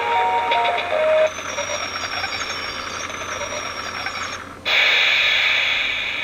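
Toy train coin bank: its electronic melody ends about a second in. Then the small motor and gears whir with a thin high whine as the toy tram runs round the plastic track. The whir breaks off briefly about four and a half seconds in and comes back louder.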